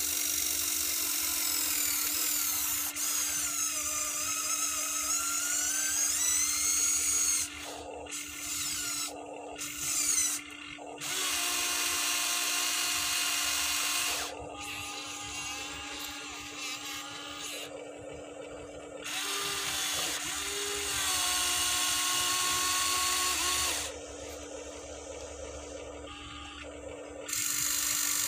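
Small electric motors of a Huina 1593 RC excavator whining as its boom, arm and bucket move, in several start-stop bursts of a few seconds each. The pitch rises and falls with the load, over a steady low hum.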